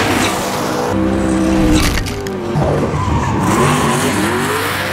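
Ken Block's Hoonicorn, a 1965 Ford Mustang with a V8, revving up and down several times while drifting, with its tyres squealing.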